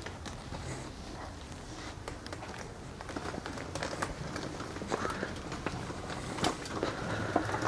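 Antique wicker wheelchair being wheeled across a hard floor, with footsteps: a run of light clicks, rattles and knocks that grows busier and louder about three seconds in.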